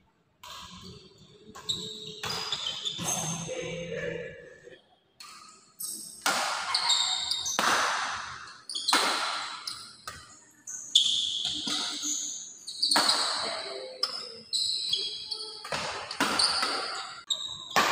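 Badminton rally: sharp racket-on-shuttlecock hits, about one a second, echoing in a large hall, starting after a quieter pause.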